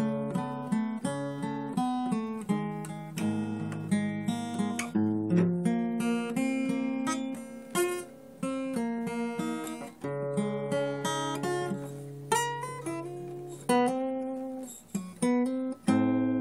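Acoustic guitar music: picked notes and chords, each struck sharply and ringing away, over a changing bass line.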